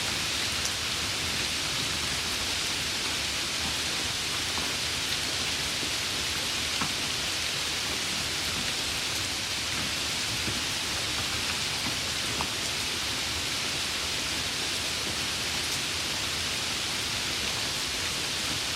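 Light rain falling steadily: an even hiss with a few sharper individual drops.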